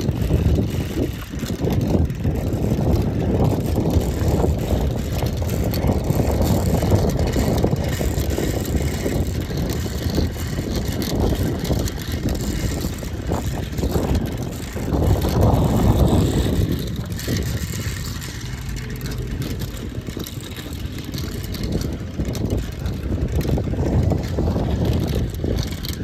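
Gusting wind buffeting the microphone, a low rumbling noise that swells and eases, strongest a little past halfway through. It is the wind that spins the homemade sheet-metal fan.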